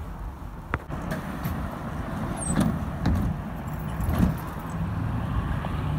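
A vehicle engine running with a steady low rumble, with a sharp click about a second in.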